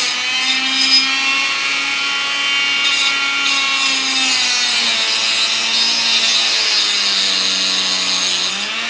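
Dremel rotary tool with a small cutoff disc spinning fast and grinding down the head of a copper nail used as a wheel axle. A steady motor whine carries a gritty grinding hiss. The pitch sags for a few seconds in the second half as the disc is pressed in under load, then rises again near the end.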